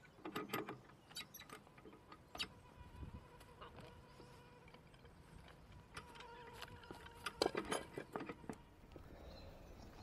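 Faint metal clinks and knocks of a cant hook being worked on a log: a cluster near the start and another about seven seconds in.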